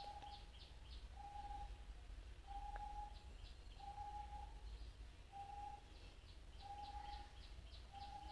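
Faint birdsong: one bird repeats a short, level-pitched note about once a second, while bursts of rapid high chirps come in at the start, around three seconds in, and near the end.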